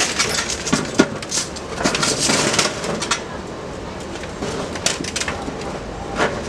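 Steel auger blades of a shaftless spiral clanking and scraping as they are fed into the reactor tube: a run of sharp metal knocks, with a longer rasping scrape about two seconds in.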